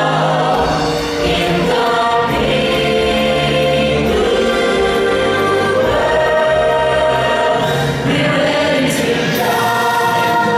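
Musical number from a live stage show: a chorus of voices singing together over continuous band accompaniment.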